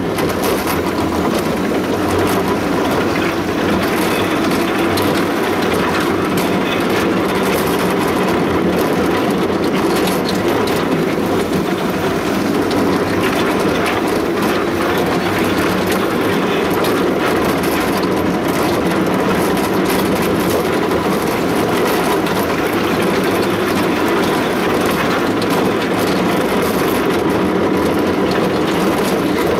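Small ride-on fairground train running steadily with riders aboard: the continuous noise of its motor and wheels rolling, with a faint steady whine.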